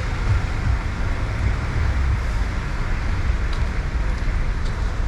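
Steady street traffic noise with a continuous low rumble.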